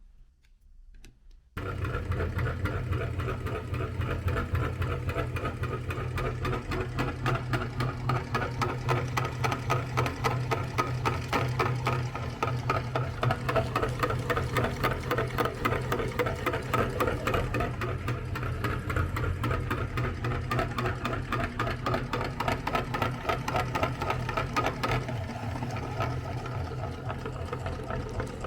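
Electric meat grinder switching on about a second and a half in, then running steadily with a low hum and a fast, even chatter.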